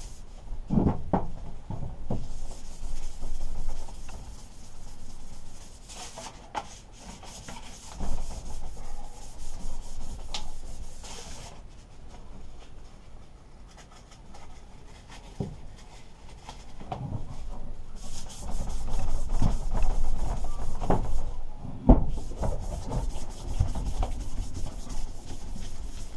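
Fine sandpaper rubbed back and forth along a painted steel lawnmower handlebar in runs of quick strokes with short pauses between, taking off light rust and roughening the old paint so new paint will grip. A sharp knock near the end.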